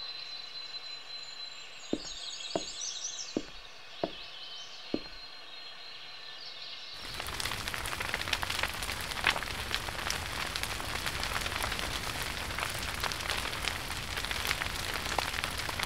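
Birds chirping in woodland with five sharp knocks in the first few seconds; then, from about seven seconds in, a wood fire in a stove crackling and hissing with many small pops.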